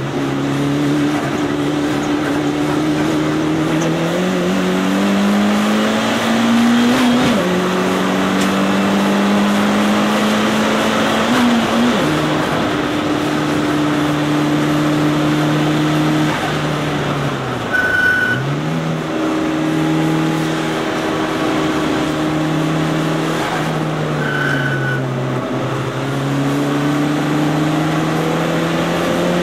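Mitsubishi Lancer Evolution III's turbocharged 2.0-litre four-cylinder engine, heard from inside the cabin while being driven hard. The pitch climbs through each gear and drops at every shift, about four times, and dips low once near the middle as the car slows for a corner before pulling up again.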